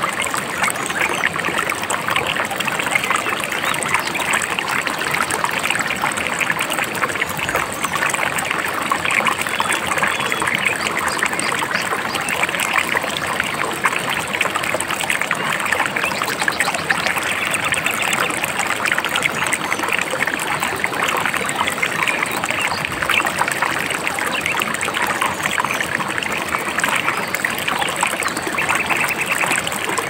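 A babbling river running steadily: an even, continuous rush of flowing water.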